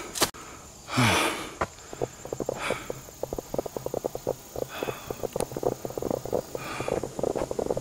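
A person breathing hard while moving, with heavy exhales about every two seconds. Under it runs a rapid crackle with a steady low hum; there is a sharp click at the start and a louder rush of noise about a second in.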